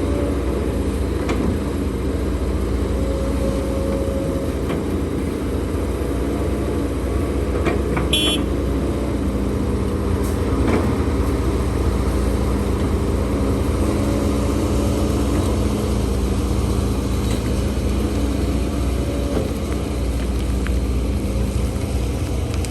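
Heavy diesel engine of a HIDROMEK HMK230LC excavator running steadily, with a few short knocks and a brief high squeak about eight seconds in.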